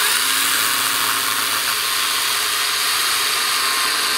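Greenworks cordless battery chainsaw cutting through a fallen, half-rotten but fairly dry pine log, running at a steady high-pitched whir as the chain bites into the wood.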